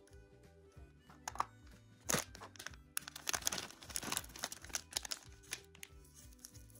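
Crinkling plastic candy packaging, as a bag of wrapped lollipops and a lollipop's wrapper are handled, over light background music. The crinkling is densest and loudest in the middle, after a few sharp clicks early on.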